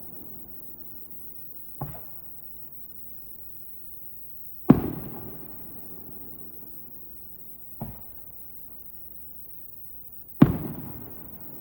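Aerial firework shells going off: four booms about three seconds apart, alternating smaller and louder, the two loud ones trailing off in a long rolling echo.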